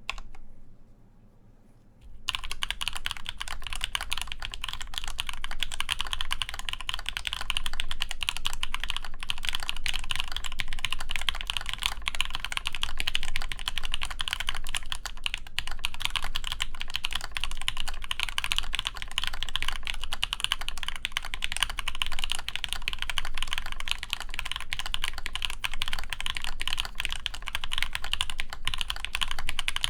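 Continuous typing on a mechanical keyboard: an AEBoards Praxis IM with an injection-molded ABS case, full aluminum plate, lubed Zepsody Blue Bonnet switches and GMK keycaps. A single key click comes at the very start, then near quiet for about two seconds before the steady run of keystrokes begins.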